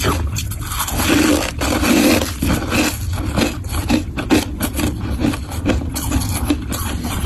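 Close-up crunching of crunchy humidifier frost, heard as a dense run of fast, irregular crackles.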